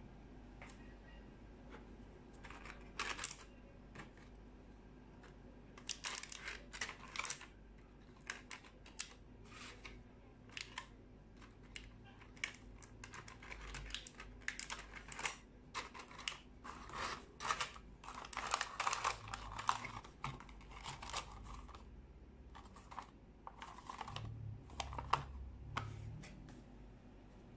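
Faint, irregular clicks, taps and crinkles of a thin clear plastic blister tray and a cardboard box being handled as a small magnetic phone mount is packed into them.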